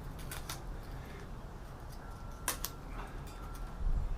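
A few light clicks and taps of a computer motherboard being handled and turned over, the sharpest about two and a half seconds in.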